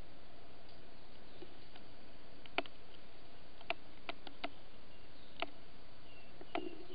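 Sharp, irregular taps, about seven over four seconds: a recurve-billed bushbird hammering at bamboo stems with its upturned bill. Faint, short descending whistled notes come near the end, over a steady hiss.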